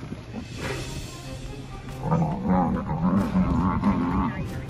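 Growling and bellowing animal calls from a lion attack on a Cape buffalo herd, a run of wavering calls from about two seconds in, over background music.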